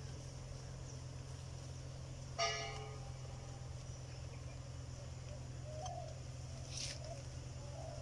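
A short bell-like metallic ring about two and a half seconds in, fading within half a second, over a steady low hum and a high insect chirr; a couple of light clicks near the end.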